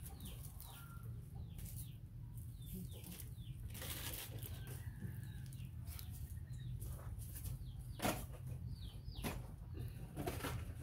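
Short high chirps from a small animal that fall in pitch, coming in twos and threes, over a steady low hum, with a few sharp knocks about four, eight and nine seconds in.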